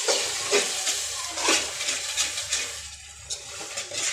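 A spoon stirring and scraping fried onions and tomatoes in a metal pot, repeated strokes over a steady sizzle of hot oil; it goes quieter about three seconds in.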